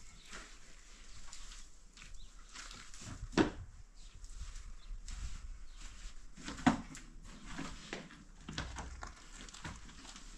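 A hoe chopping and scraping through loose dirt and stones, with many small knocks and two much louder sharp strikes about three seconds apart.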